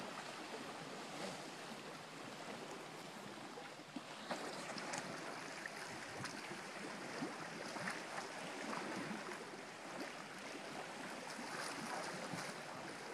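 Small waves on the lake lapping and splashing against a concrete break wall, a steady wash of water with a few faint knocks.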